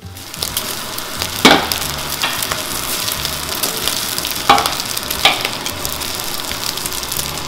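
Fried rice with egg sizzling in a steel pan while it is stirred with a spatula. Three sharp clacks of the spatula against the pan come about a second and a half in, then twice around four and a half to five seconds.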